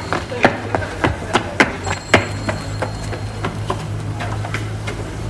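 A run of sharp taps, about three a second, stopping about two seconds in, followed by a steady low hum.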